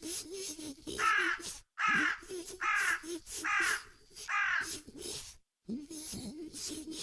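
A bird giving five harsh, cawing calls in a row, each about half a second long, evenly spaced.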